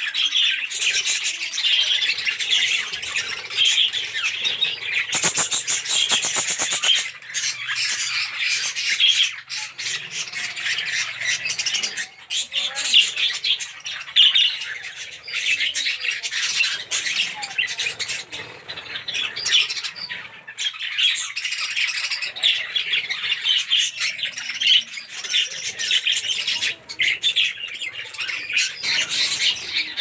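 A flock of lutino and albino budgerigars chattering, with constant overlapping chirps and squawks. About five seconds in there is a brief rapid rattle.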